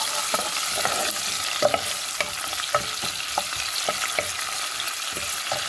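Sliced onions sizzling in hot oil in a metal pan, with a steady hiss. A wooden spoon stirs them, scraping and knocking against the pan about every half second.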